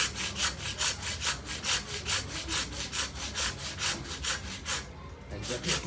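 A butcher's blade sawing back and forth through a hanging side of beef, rasping in quick, even strokes of about five a second, with a brief pause near the end.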